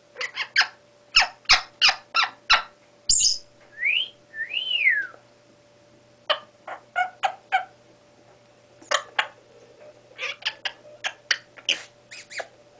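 Young Congo African grey parrot making a run of sharp clicks. About four seconds in come two whistles that rise and then fall, followed by more clicks and short chirps.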